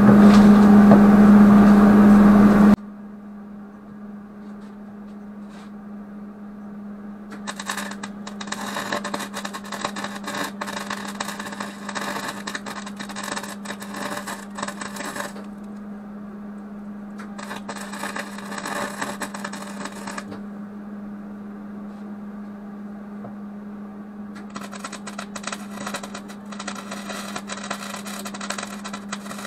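Wire-feed welder arc crackling and sputtering in three runs, the first about eight seconds long, then about three seconds, then about five near the end, over a steady hum. It opens with a loud steady hum for about three seconds that cuts off suddenly.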